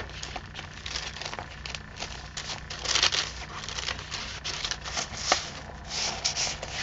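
Paper rustling and crinkling as the pages of a handmade paper journal are handled and turned, with irregular light taps and louder rustles about three seconds in and again near the end.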